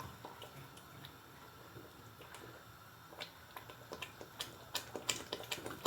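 Spoon stirring the tomato-and-stock sauce in a cooking pot, with faint irregular clicks and taps against the pot that come more often in the second half.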